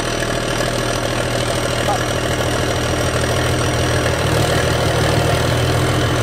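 Excavator's diesel engine running steadily, its note growing a little louder and fuller about four seconds in.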